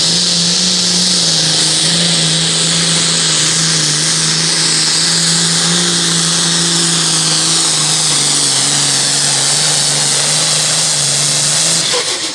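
John Deere 4440 Super Farm pulling tractor's turbocharged diesel engine running flat out under load while it drags the pulling sled, with a high turbo whine over the engine. The engine note sags a little about two-thirds of the way down the track as the sled bears down. Near the end the sound drops off suddenly as the pull ends.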